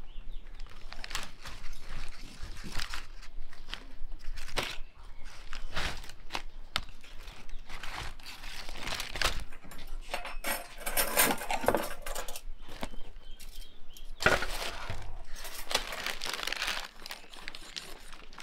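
Baking paper and aluminium foil crinkling and rustling as a roast is unwrapped, with irregular clicks, taps and scrapes from a knife working on a wooden cutting board.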